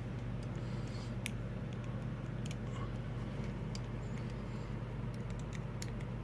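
Scattered faint metal clicks and scrapes of a small steel tool prying at the retaining ring on a padlock, over a steady low hum.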